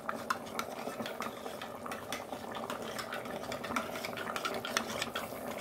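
Spoon stirring rice-and-pepper powder into a cup of water, clinking irregularly against the sides, over the bubbling of curry in a pressure cooker.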